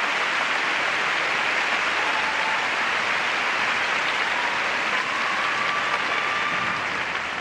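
Arena crowd applauding steadily, with a few faint whistle-like tones; the applause begins to die down near the end.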